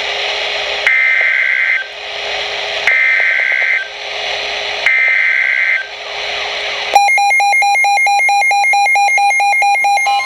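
Weather radio broadcast over static: three short bursts of SAME digital data tones, each about a second long with a second of hiss between, which is the end-of-message code closing the alert. About seven seconds in, a loud electronic alarm starts beeping rapidly.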